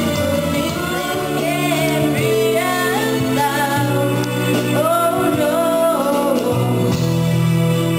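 Woman singing karaoke into a handheld microphone over recorded backing music, with long held notes that bend up and down.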